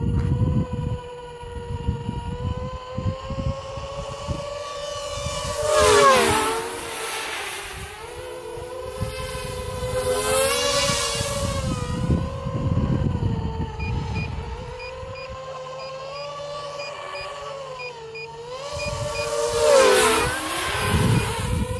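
FPV quadcopter on a Blackout mini H-quad clone frame, its electric motors and propellers whining as it flies, the pitch wavering with throttle. It passes close twice, about six seconds in and again near the end, getting loud as the pitch sweeps down and back up.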